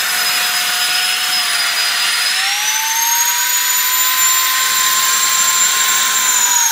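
Arc'teryx Voltair avalanche airbag's battery-powered electric blower running at full speed to inflate the airbag, a loud steady high-pitched whine. About two seconds in its pitch glides up a step and holds, and near the end the whine winds down with a falling pitch as the 7-second inflation run ends.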